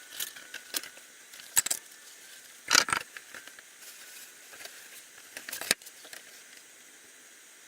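A handful of short, sharp clicks and clatters at uneven intervals, the loudest a quick double click about three seconds in, dying away into faint hiss after about six seconds.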